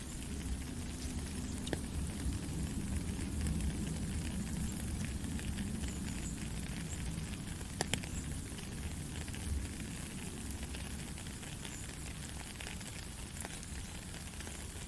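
Steady heavy rain hissing, with scattered sharp drop impacts and two louder ones about eight seconds in. Under it, a low thunder rumble swells and then fades over the first ten seconds or so.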